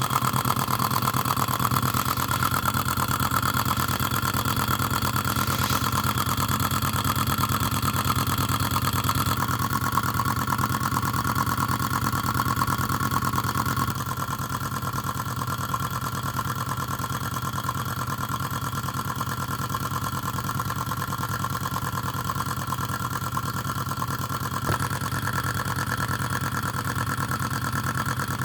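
A model Rider-Ericsson hot-air engine running steadily at a good speed, with its water pump working. It drops a little in level about halfway through.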